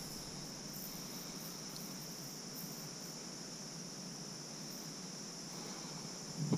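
A chorus of crickets chirping in a steady, high-pitched drone.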